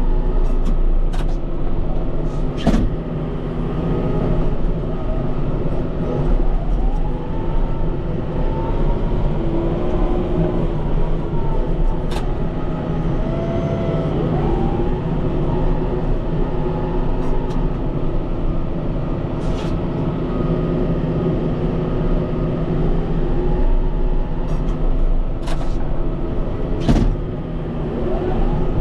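Kubota M5-091 tractor's diesel engine running steadily while pushing snow, its pitch rising and falling a few times. Several sharp knocks and clunks are scattered through it.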